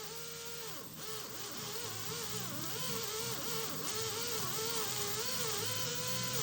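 Slow-speed dental drill whirring as it removes remaining decay from a tooth, its whine dipping in pitch and recovering again and again as it bears on the tooth. A steady hiss runs under it.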